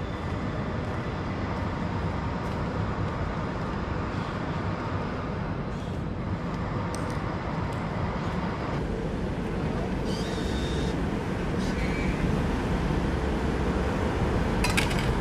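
Steady low rumble of vehicle noise, with a few faint clicks.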